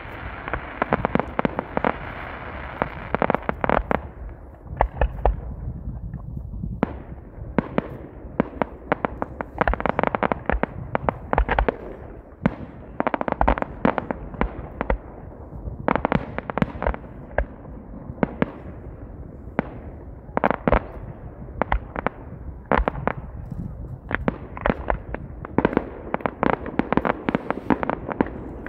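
Fireworks display: dense volleys of sharp pops and bangs, coming in crackling clusters every second or two. A steady hiss from ground fountains dies away a few seconds in.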